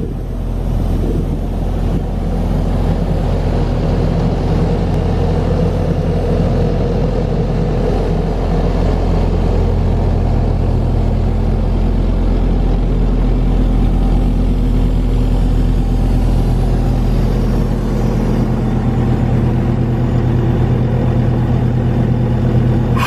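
Atlas Copco XAHS236MD towable air compressor running steadily on its Mercedes OM904LA diesel engine, a loud even hum that keeps a constant pitch. The compressor is up to working pressure and making air.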